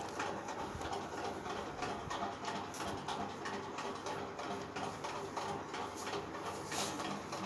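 Faint room noise: scattered small clicks and knocks at irregular moments over a steady low hum.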